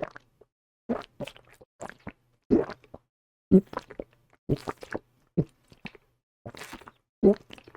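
A man making exaggerated gulping sounds with his mouth right up against the microphone: a rapid, irregular series of short gulps, some coming in quick pairs.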